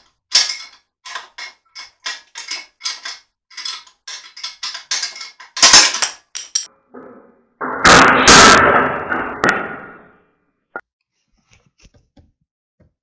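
Evenly spaced clicks for about five seconds, then a sharp crack, and about two seconds later a loud crashing clatter that dies away over two seconds: a 3D-printed test block breaking under load, with its metal fittings clattering.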